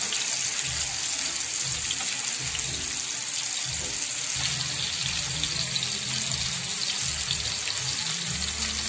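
Masala-marinated fish pieces shallow-frying in hot oil on a dosa tawa: a steady, even sizzle of bubbling oil.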